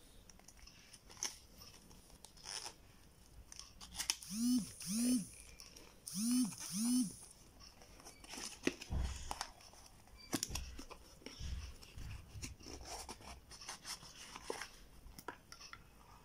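Cardboard card-game box being opened by hand and the plastic-wrapped deck slid out: scattered clicks, scrapes and crinkles of card and wrapping. About four seconds in come four short squeaks in two pairs, each rising then falling in pitch; these are the loudest sounds.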